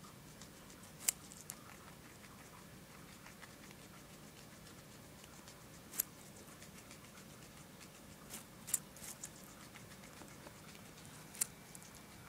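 Guinea pig gnawing a raw carrot: a few sharp, crisp crunches spaced seconds apart, with a faint steady hiss between them.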